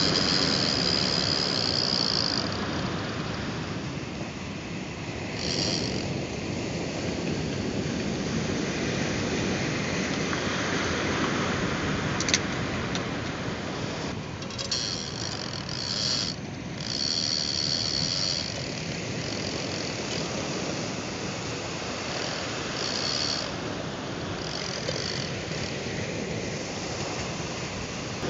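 Big-game fishing reel's drag and ratchet giving line in several short bursts of high-pitched whine as a hooked shark pulls against it, over a steady wash of surf.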